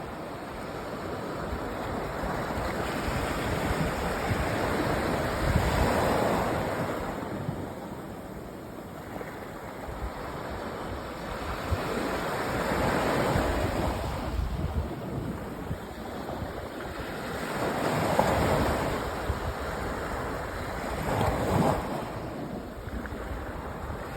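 Sea waves breaking and washing up a sandy beach, each surge swelling and falling back, about four in the stretch, every five to seven seconds.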